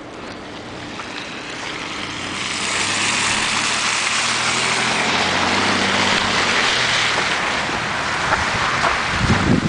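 A motor vehicle driving past on a snow-covered street: engine hum and tyre noise swell over about three seconds, hold, and fade near the end.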